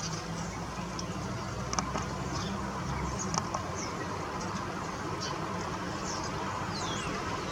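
Steady hiss of falling rain over a low rumble, with short high bird chirps scattered throughout and a couple of falling calls near the end.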